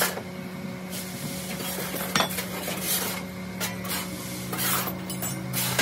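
Metal hand tools scraping and smoothing packed foundry sand on top of a steel moulding flask, in irregular strokes about a second apart, with one sharp tick a little after two seconds. A steady low hum runs underneath.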